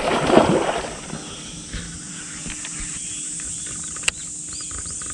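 A snakehead swirling and splashing at the surface of shallow weedy water as it strikes at a frog lure; the splash dies away within the first second. After that, insects chirr steadily, with a single sharp click about four seconds in.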